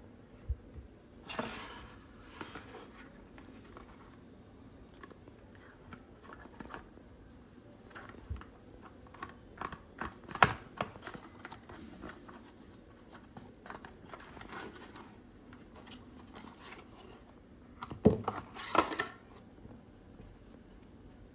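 Hands handling and opening a sunscreen's packaging: rustling and scraping with scattered clicks and taps. There is a sharp tap about halfway through, and a burst of rustling with a knock near the end.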